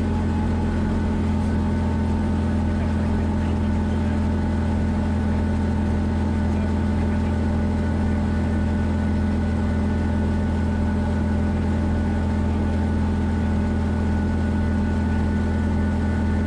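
Schweizer 300CB helicopter, its four-cylinder Lycoming piston engine and rotors running with a steady, unchanging hum as it settles onto its parking spot.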